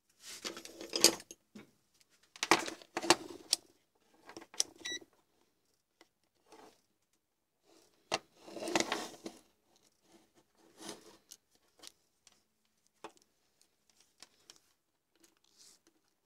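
Digital multimeter and its test leads being handled on a wooden workbench: several bursts of clattering and knocking as the meter is set down and shifted and the probes are picked up, with smaller taps later and a brief high beep about five seconds in.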